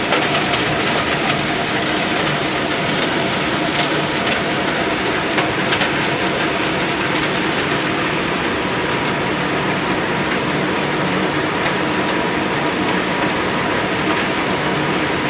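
Slag-processing plant machinery (jigs, conveyors and separators handling wet ferrochrome slag) running steadily. It makes a continuous mechanical noise with a faint constant whine through it and a few small knocks.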